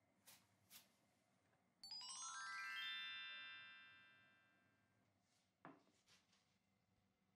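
Sparkle chime sound effect: a quick rising run of bell-like notes that rings out and fades over about three seconds.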